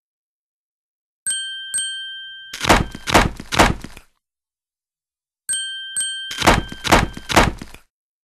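A cartoon sound effect played twice: two sharp, bell-like dings half a second apart, whose tones ring on, then a quick run of about five heavy thumps.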